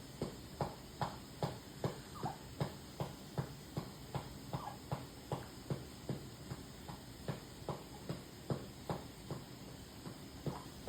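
Steady rhythmic patting on a baby's back, about two to three soft pats a second, to bring up a burp.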